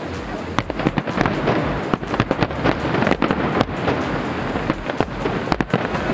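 Aerial fireworks bursting: dense crackling with many sharp bangs, one after another.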